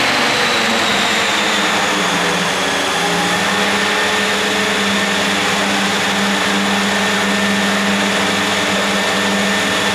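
RC Aerodyne MD 500E scale model helicopter running on its skids, its motor and rotor giving a steady whine whose pitch eases slightly lower.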